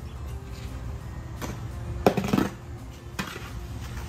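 Background music, with a few sharp knocks and scrapes of a metal hand trowel digging through soil against the side of an aluminium foil pan. The loudest knock comes about two seconds in.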